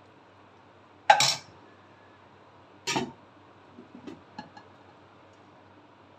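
Metal serving spoon clanking against the cooking pan and serving dish while the qeema is dished out: two sharp clatters about two seconds apart, then a few lighter knocks.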